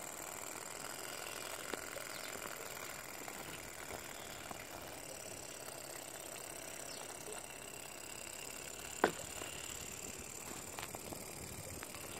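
Microcosm R06 miniature Stirling engine running steadily on its spirit-burner flame, with a faint high whine and light, irregular ticking. There is one sharp click about nine seconds in.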